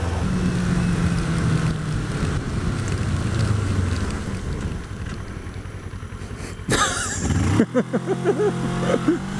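Kawasaki ER-6f's 650 cc parallel-twin engine running as the bike rides along, with road and wind noise. The engine note is steady at first, drops back to quieter road noise midway, and returns after a short loud burst of noise about seven seconds in.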